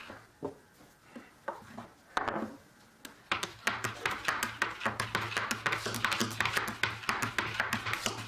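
Steel burnisher worked against the edge of a steel cabinet scraper to raise the burr: scattered metal clicks and scrapes at first, then from about three seconds in a fast, steady run of short clicking, scraping strokes over a low hum.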